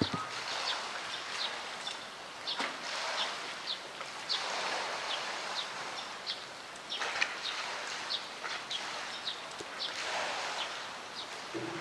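Small birds chirping repeatedly in short high notes over a hiss of heavy rain and sloshing pool water, where a polar bear is swimming.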